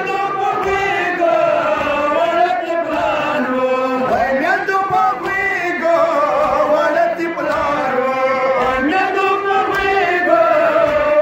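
Male voice chanting a Shia mourning lament (nohay) in a melody of long, wavering held notes.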